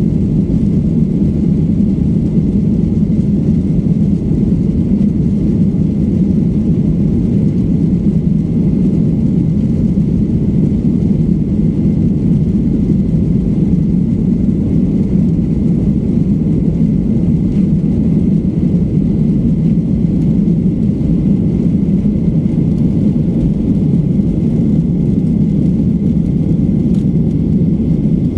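Steady low rumble inside a jet airliner's cabin as it rolls along the ground, the engines running and the wheels on the pavement, at an even level throughout.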